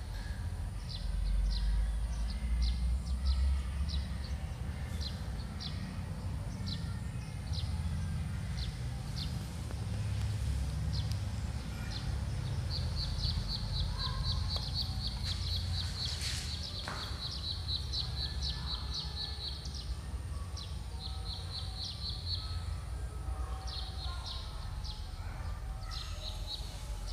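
Small birds chirping over and over in short, high calls, with a rapid trill lasting several seconds about halfway through. A steady low rumble runs underneath.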